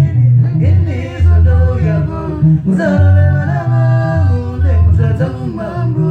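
Sungura band playing live, a male voice singing over guitars and a pulsing bass guitar line.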